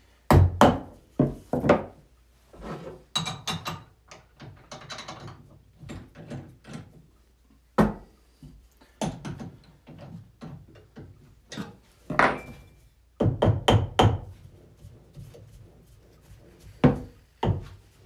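Small hammer tapping a wooden cup blank seated in a lathe chuck: irregular sharp knocks, some in quick pairs. The blank is being knocked into line so that it runs true and the cup's walls come out even.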